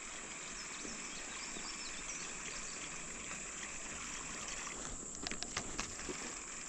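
River water trickling and lapping around a kayak under a steady high-pitched hiss, with a few light clicks and taps about five seconds in.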